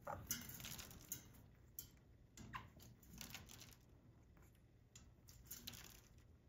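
Faint splashing and pattering of water in short bursts every second or so as a sun conure flaps its wings and dips in a shallow stainless steel bowl of bathwater, pausing briefly near the middle.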